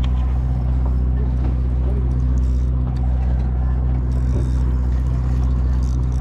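Boat engine running steadily at low revs, a low even hum with no change in pitch.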